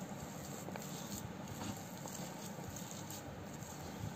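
Hand mixing a mashed mixture with chopped onion on a steel plate: soft, irregular pattering, with faint taps of fingers against the plate.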